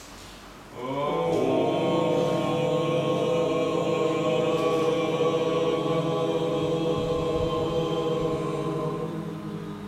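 A man's voice chanting one long, steady Om on a single pitch. It starts about a second in, is held for about eight seconds and fades near the end.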